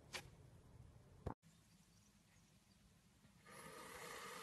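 Hand pressing into slime, with two short sticky pops in the first second and a half. After a stretch of near silence, about three and a half seconds in, a knife starts slicing down through a block of kinetic sand with a steady soft crunchy hiss.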